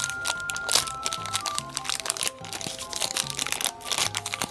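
Thin LDPE plastic blind bag crinkling and crackling in rapid bursts as fingers pull it open, over light background music with a steady bass line.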